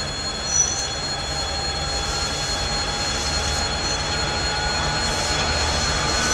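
A 2TE116 twin-section diesel locomotive hauling a freight train as it approaches, its diesel engines giving a steady low rumble that slowly grows louder. A brief high wheel squeal comes from the curve about half a second in, and a fainter one a few seconds later.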